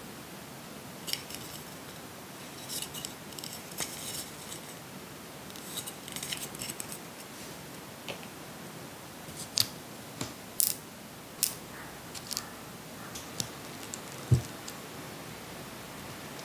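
Small hard plastic Re-Ment miniature toy pieces being handled: packaging crinkling in short rustles for the first few seconds, then about eight sharp clicks and taps of plastic parts, the loudest with a dull knock near the end, over a steady hiss.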